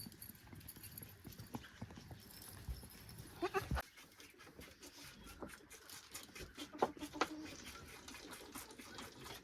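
Farm livestock calling: one short call about three and a half seconds in, then two fainter ones around seven seconds, over quiet farmyard background.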